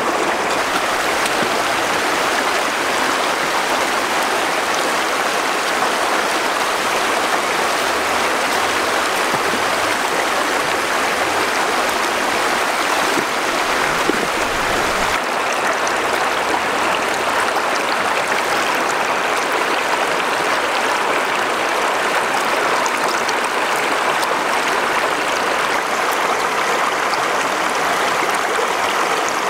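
Water of a flowing river or stream, a steady rushing.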